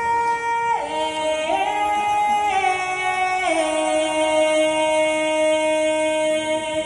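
Wordless sung melody of long held notes in two parts that move together, stepping down to a new pitch a few times.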